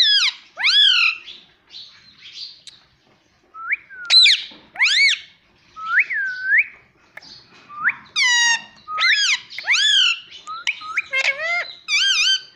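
Indian ringneck parakeet calling close to the microphone: a run of short, loud whistled and squawky calls that glide up and down in pitch. There is a brief lull a couple of seconds in.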